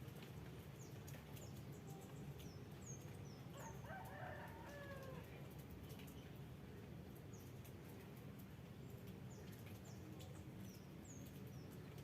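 A rooster crowing once, faint and distant, about four seconds in, its call falling in pitch at the end. Small birds give short high chirps on and off over a steady low background hum.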